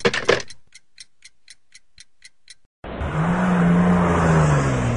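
A clock ticking, about four light ticks a second, which stops after about two and a half seconds. Then a car engine comes in suddenly and runs steadily, its pitch rising a little and then easing off.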